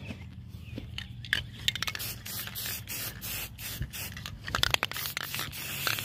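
Aerosol spray can of primer hissing in short, irregular passes, mixed with scraping and rubbing against the painted metal panel.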